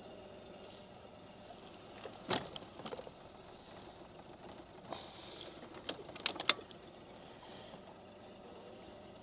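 Scattered sharp clicks and knocks from a baitcasting rod and reel being worked while a hooked fish is played: one knock about two seconds in, a few more around three and five seconds, and the loudest pair of clicks about six and a half seconds in.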